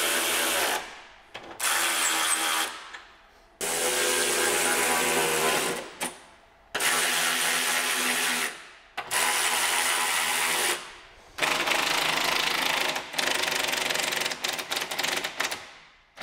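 Cordless electric ratchet running nuts down on the suspension strut's top mount, in about six runs of steady whirring, each one to two seconds long and tailing off. Near the end the runs break into short stutters.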